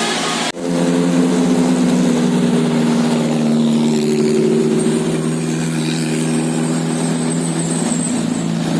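Telolet musical air horns on a bus, a set of many trumpets, sounding a steady held chord that sets in about half a second in.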